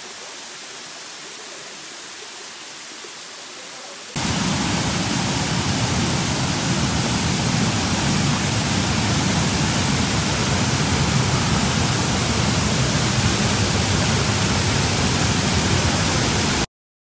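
Waterfall water rushing: first a small cascade pouring over rock, then, about four seconds in, a sudden jump to a much louder, deeper, steady rush of a big waterfall in high, muddy flood. The sound cuts off abruptly near the end.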